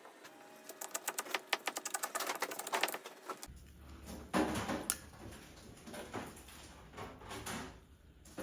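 Cracked touchscreen glass crackling and snapping in quick clicks as it is peeled off the display, followed by scattered knocks and rustles.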